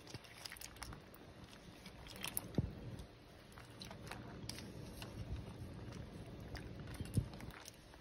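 Hand stirring thawing crab legs and shrimp in a bowl of water: the shells click against each other and the bowl, with small splashes. There are irregular light clicks throughout and a couple of louder knocks, about two and a half seconds in and again near the end.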